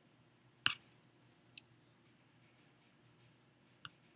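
Three light clicks of a small wooden CO2 dragster with plastic wheels being handled and turned over, the first one the loudest.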